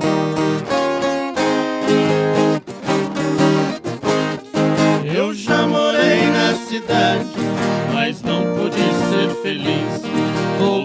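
Viola caipira and acoustic guitar playing a lively, steadily strummed and plucked caipira tune.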